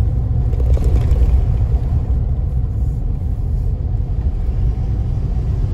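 Steady low rumble of a car driving along, road and engine noise heard from inside the cabin.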